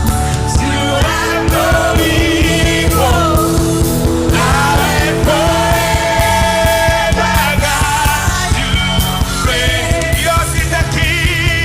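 Worship band music with singing: drums keep a steady beat under bass and sustained chords, while a voice sings long, wavering lines.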